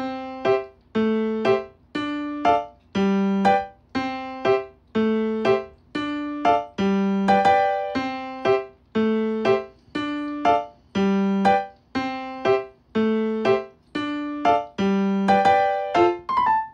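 Background music: a piano-like keyboard melody of short, evenly spaced notes, about two a second, at a steady pace.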